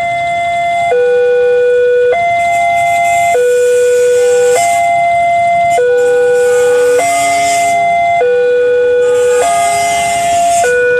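Electronic warning alarm of an Indonesian railway level crossing sounding while its red lights flash: a loud two-tone hi-lo signal that switches between a lower and a higher tone about every 1.2 seconds, signalling that a train is approaching and the road is closed.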